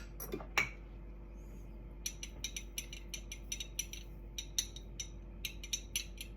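Light, irregular clicking and ticking as a measuring spoon scoops freeze-dried cilantro: a couple of louder clicks at the start, then small ticks about three a second from about two seconds in.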